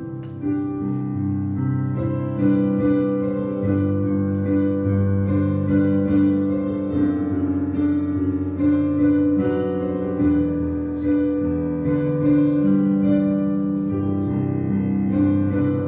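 Slow instrumental keyboard music: held chords with single notes played over them, new notes every second or so.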